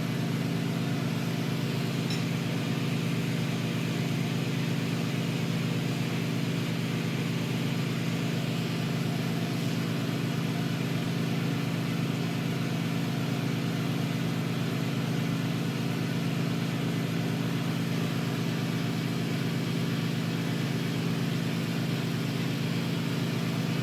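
Glassworking burner running steadily with its air blower: a constant low hum under an even hiss, unchanging throughout.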